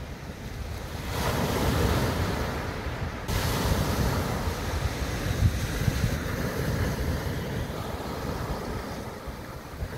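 Sea waves breaking and washing up on a beach, with wind buffeting the microphone; the surf swells about a second in and again about three seconds in.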